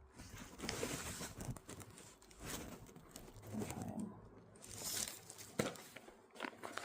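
Fabric being handled and rustled, crinkling in uneven bursts, with one sharp click a little over halfway through.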